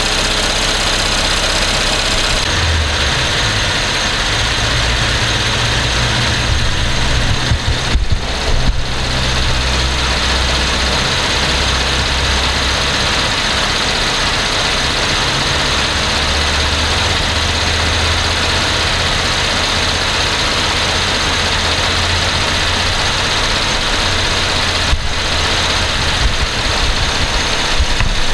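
2012 Cadillac SRX's 3.6-litre direct-injection V6 idling steadily, warming up after a cold start from standing overnight.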